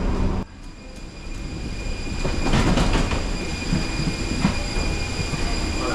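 Music cuts off about half a second in, giving way to the low, steady rumble of a moving vehicle with rattles and clanks.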